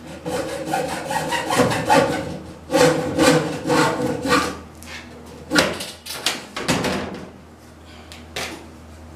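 A hand saw cutting through plastic pipe in quick back-and-forth strokes, leaving burrs on the cut end. The strokes run for about four seconds, followed by a few separate scrapes or knocks as the cut finishes.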